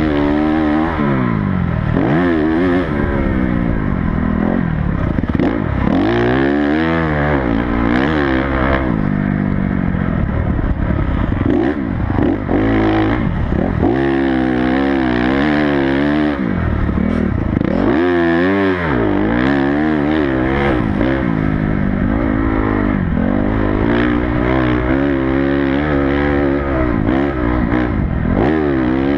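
Honda CRF250 motocross bike's single-cylinder four-stroke engine at full race pace, revving up hard and dropping off again and again as the rider accelerates, shifts and backs off through the turns.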